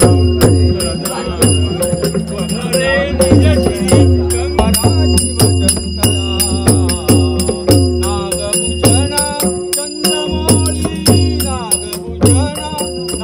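Live processional temple music: a drum beating a steady rhythm of about two strokes a second, with small hand cymbals clashing and jingling and a steady held drone tone.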